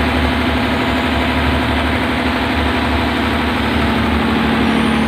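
An engine idling steadily, with a constant hum.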